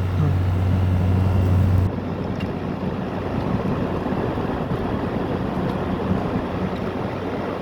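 GE 6,000 BTU wall air conditioner running: a steady rush of fan air with a strong low hum that falls away suddenly about two seconds in. The unit's compressor is running with its accumulator frozen over.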